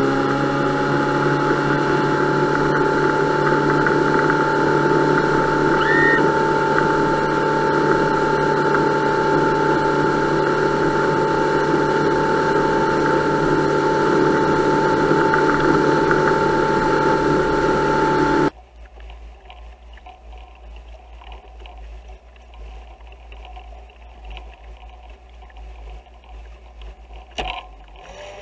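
Mercury 75 hp four-stroke outboard pushing a RIB at speed: a steady engine whine at a constant pitch over hull and spray noise. About two-thirds of the way through it cuts off abruptly to much quieter sounds of water and a low wind rumble, with a single click near the end.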